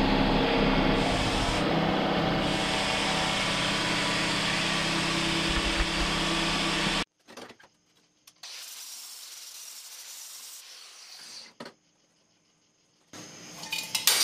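CNC plasma cutter torch cutting a steel pipe turning on a rotary axis: a loud, steady hiss with a low hum underneath. It cuts off suddenly about seven seconds in, leaving only faint intermittent noise.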